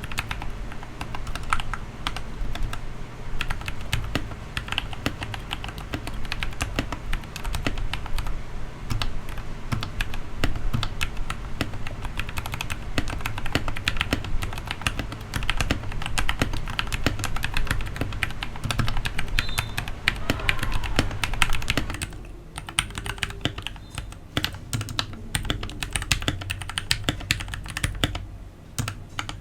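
Fast typing on a Royal Kludge RK68 65% mechanical keyboard fitted with SA-profile PBT keycaps: a dense run of keystroke clicks, thinning out over the last several seconds.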